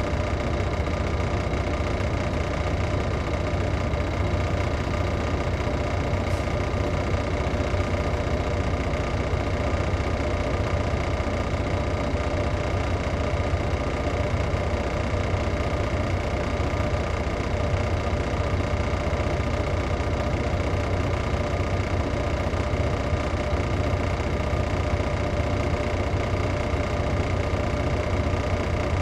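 Detroit Diesel Series 60 straight-six diesel of a 2001 MCI D4000 coach running at a steady, unchanging speed, heard from inside the bus.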